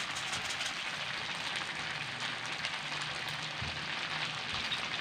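Strips of pork and liver frying in a steel wok: a steady sizzle with fine crackling throughout.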